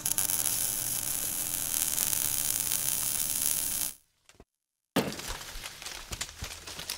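Outro sound effect of dense crackling, shattering noise that cuts off after about four seconds. After a short silence comes a sudden impact, followed by scattered crackling as the logo appears.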